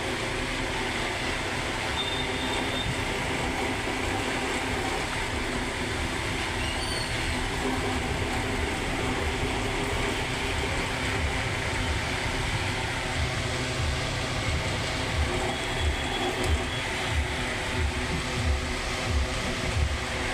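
Electric table fan running steadily: motor hum with several steady tones over the rush of air. About halfway through, low uneven thuds start pulsing through the sound and grow stronger.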